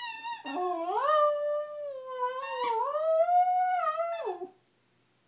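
Dog howling in a long, wavering 'singing the blues' call that rises and falls in pitch for about four seconds, after a brief higher cry at the start, then stops abruptly.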